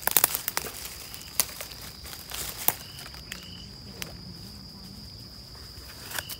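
Crackling and snapping in dry leaf litter, a quick cluster of sharp crackles at the start and a few scattered clicks after, over a steady high insect drone.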